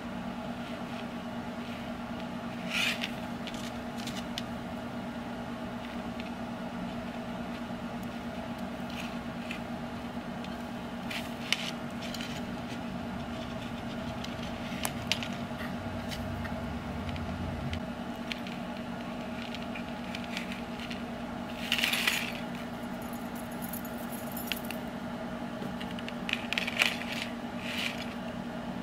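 Light metallic clicks and jingles of fishing hooks and thin wire being handled and fitted together, a few at a time, over a steady background hum.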